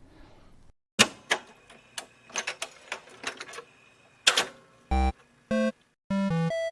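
A quick run of sharp clicks and clacks like typewriter keys, followed by a string of short electronic beeps at different pitches.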